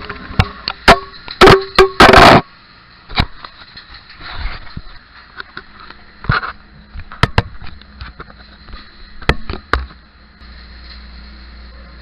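A series of sharp knocks and clanks from hard objects being handled, with a few short scraping bursts, the loudest cluster about two seconds in; the knocks die away about ten seconds in, leaving a low steady hum.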